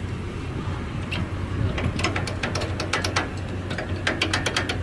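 Scattered metallic clicks and clanks of a trailer being hitched up for a mini skid steer, over a steady low hum of an engine running.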